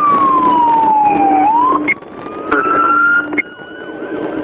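Police siren in a slow wail, its pitch sliding down and then climbing back up, over a steady low hum that cuts out about two seconds in and again near the end.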